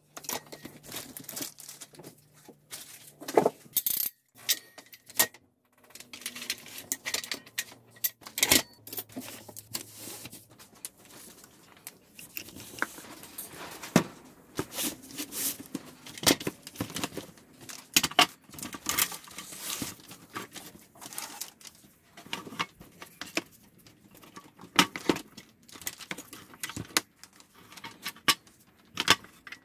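Hardwood strips knocking and clicking against each other and the bench as they are laid out and pushed together by hand, with metal clinks from steel bar clamps being moved. The knocks come irregularly, several a second at times.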